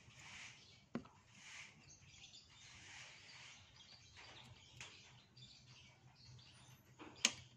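Faint bird chirping in the background, with a sharp click about a second in and a louder sharp click near the end.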